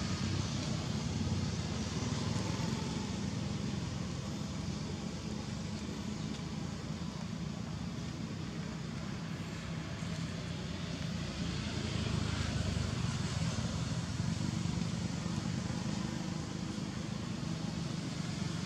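Steady background noise: a continuous low rumble with an even hiss over it and no distinct events.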